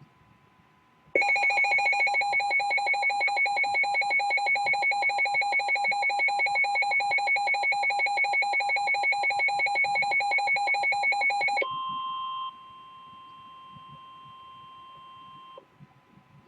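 Emergency tornado-warning alert: a loud electronic alarm beeping rapidly for about ten seconds, then a steady single warning tone that cuts off shortly before the end.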